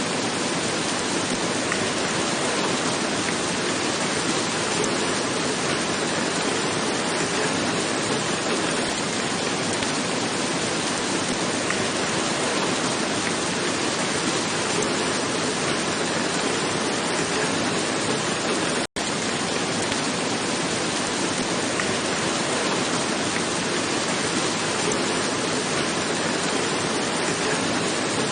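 Steady rain falling on a roof, an even hiss, broken by a momentary dropout to silence about two-thirds of the way through.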